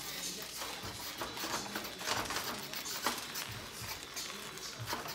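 Wooden spoon stirring and scraping leafy greens and quinoa around a pan, in irregular strokes with rustling.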